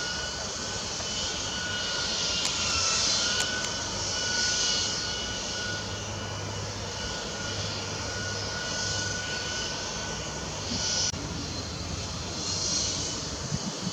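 A steady, high engine whine with a rushing hiss that swells and fades every second or two, and a brief click near the end.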